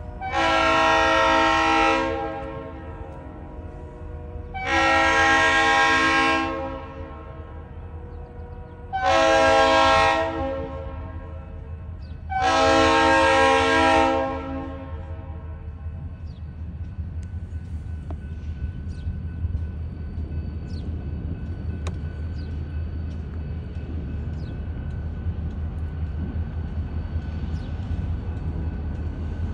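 A diesel locomotive's multi-chime air horn sounds four blasts, each about one and a half to two seconds long, warning a road grade crossing as the train approaches. After the blasts a steady low rumble of the approaching train goes on.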